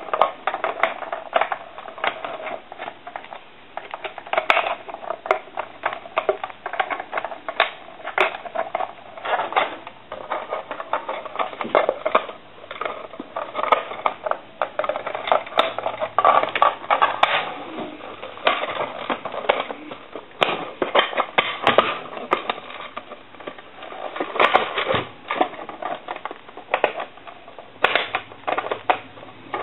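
Irregular clicks, taps and clatter of a telephone's parts being handled and fitted back together during reassembly of a Conair Metropolis telephone.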